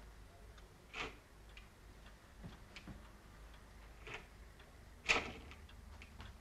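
Clock ticking, with a few louder sharp clicks among the faint ticks; the sharpest comes about five seconds in.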